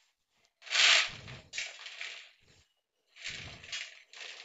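Crisp fried boondi poured in several bursts from a steel plate into a plastic bowl, the dry pearls rattling onto each other. The first pour, about a second in, is the loudest; after a short pause near the middle, two softer pours follow.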